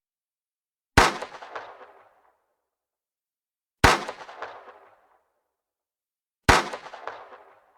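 Three single pistol shots, spaced about two and a half to three seconds apart. Each is a sharp crack followed by an echo that dies away over about a second.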